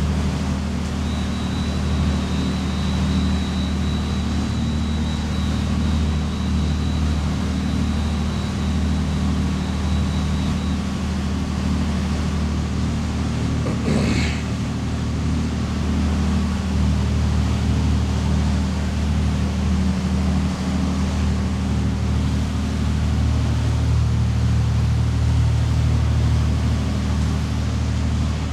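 Motor yacht's inboard diesel engines running steadily under way at low cruising speed: a steady low drone made of several engine tones. A faint high steady tone sounds for the first ten seconds or so, and one brief sharp sound comes about halfway through.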